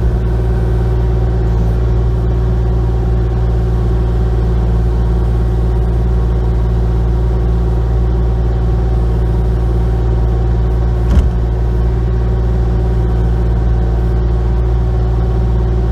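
Excavator's diesel engine running at a steady speed, with one short knock about eleven seconds in.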